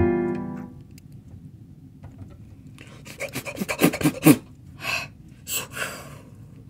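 A keyboard chord in a piano voice dies away at the start. After a quiet gap of about two seconds, a string of short breathy, rasping huffs from a person begins about three seconds in.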